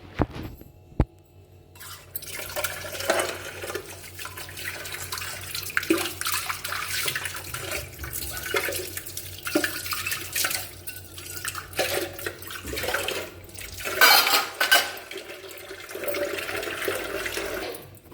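Tap water running into a sink while dishes are washed, with utensils clattering against each other. The water starts about two seconds in, and the loudest splashing comes about fourteen seconds in.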